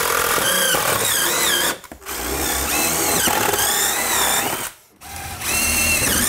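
Cordless drill with a long extender bit boring through the wall sheathing, its motor whine wavering in pitch with the load. It runs three times, stopping briefly about two seconds in and again near five seconds.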